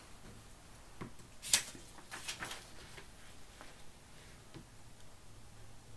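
Sheets of paper being handled and swapped under the camera: a few sharp clicks and taps, the loudest about a second and a half in, a short cluster just after, then fainter ticks.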